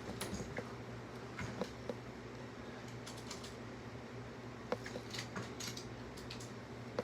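Scattered light clicks and taps of small hard objects being handled while someone searches for something, over a steady low hum.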